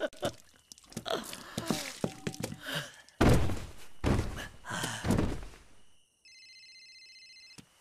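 A run of thuds and splashes as ink is flung from a bowl onto a large sheet of calligraphy paper, the loudest a little past three seconds in. At about six seconds a phone starts ringing with a pulsed electronic ring.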